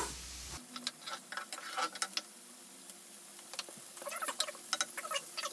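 Diced onion frying in oil in a skillet, giving off scattered small pops and crackles, in clusters.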